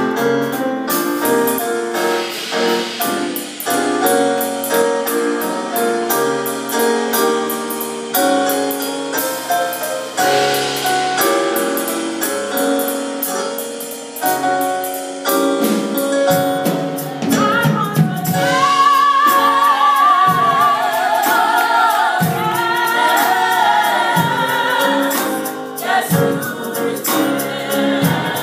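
Small, mostly female gospel choir singing in harmony, holding sustained chords; about two-thirds of the way in, higher voices with strong vibrato rise above the rest.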